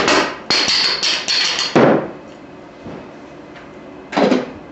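Rubber mallet striking a Steelcase Leap chair's old gas cylinder to knock it out of the upturned chair base: a quick run of sharp blows in the first two seconds, then one more blow near the end.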